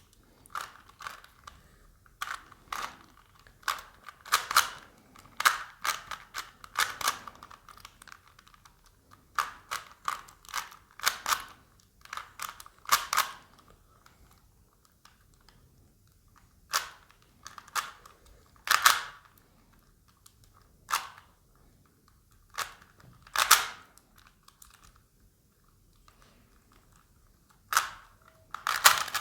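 Rubik's Cube being turned fast by hand: rattling runs of plastic clicks as the layers snap round, in quick bursts with short pauses between, the pauses growing longer in the second half.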